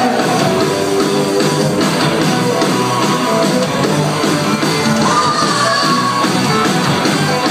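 Live rock band playing: electric guitars, bass and drums, steady and loud, heard from out in the audience of a large hall.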